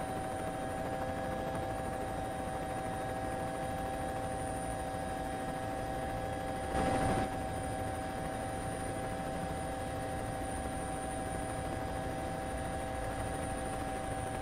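Helicopter drone at an unchanging pitch, a steady whine over a low rumble. About halfway through comes a brief, louder rush of noise.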